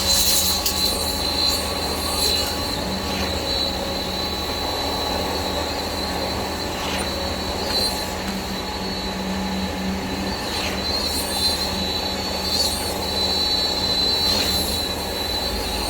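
KCP63 concrete pump truck running while pumping concrete: a steady mechanical drone with a thin, high squealing whine held throughout and a faint knock every few seconds.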